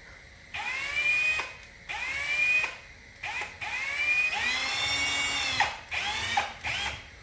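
Power drill run in about six short trigger pulls, its motor whine rising in pitch as it spins up each time, with one longer run of nearly two seconds in the second half.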